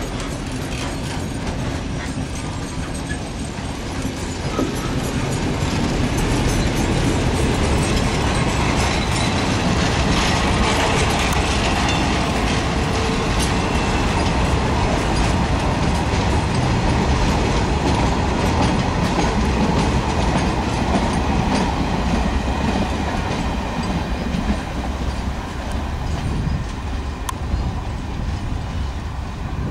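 Railway wagons of a goods train running past at close range, steel wheels rolling over the rails. The noise grows louder about five seconds in and eases somewhat near the end.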